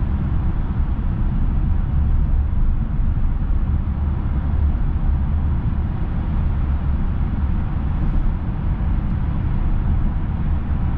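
Steady low rumble of tyre and road noise with the engine's drone inside the cabin of a Mercedes S350d 4matic cruising through a tunnel.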